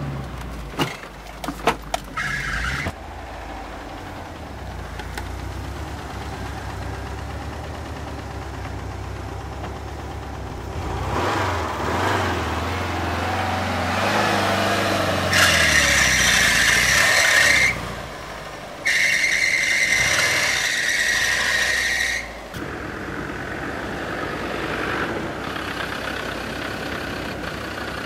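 Off-road vehicle engine running, with a few clicks at the start. Partway through it gets louder and revs, with two loud stretches of high rushing noise before it settles back to a steady run.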